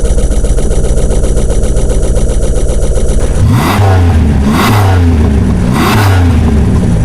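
Dacia 1310 Break's four-cylinder petrol engine idling steadily, then revved three times in quick blips about a second apart, each rising and falling in pitch, before settling back to idle near the end.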